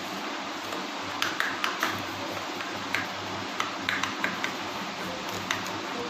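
Light clicks and taps as the metal parts of a dismantled wall-fan motor are handled and its shaft is worked, over a steady low hum. The shaft wobbles badly in its bearings, which the repairer takes as a sign that something is wrong.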